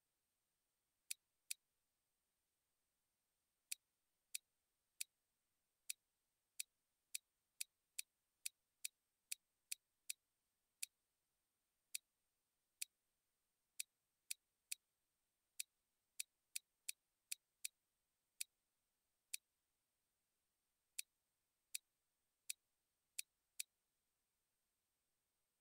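Computer mouse button clicking, about thirty-five sharp single clicks, some spaced out and some in quick runs a few tenths of a second apart, with near silence between.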